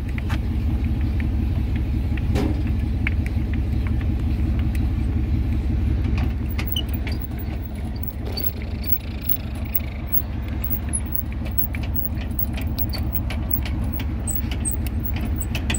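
A motor vehicle driving: a steady low road-and-engine rumble with scattered light rattling and clicking, like loose keys or items jangling.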